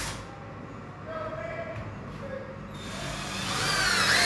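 Cordless drill driving screws into a door lock's edge plate, its whir growing steadily louder over the last second or so. A brief loud noise comes right at the start.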